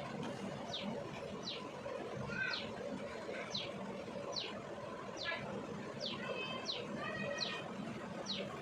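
A bird chirping repeatedly, short high calls that each fall quickly in pitch, a little more than one a second, over a steady background hiss.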